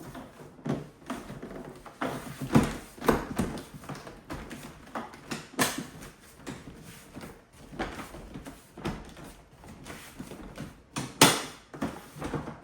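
Irregular knocks, clicks and scraping as the lid of a DIY power station case is pressed shut over tight styrofoam packing, with the sharpest knock near the end.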